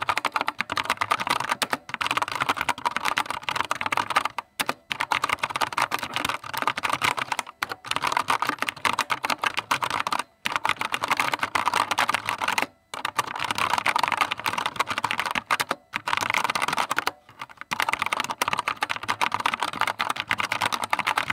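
Fast typing on an Armaggeddon MKA-2C NEO Psychraven mechanical keyboard with brown tactile switches: a dense, continuous run of key clacks, broken by a few brief pauses.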